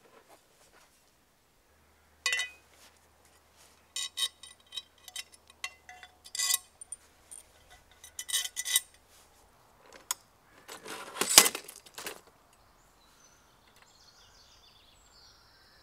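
Metal parts of an Eco 36 chainsaw mill being handled and fitted together: scattered light clinks and clanks with a brief ringing note, and a longer, louder rattle about eleven seconds in.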